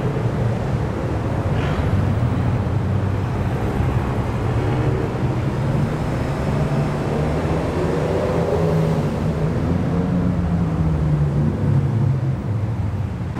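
Engines of several Ferrari sports cars driving past at low speed one after another, a steady low engine note whose pitch rises and falls a little as they pull away.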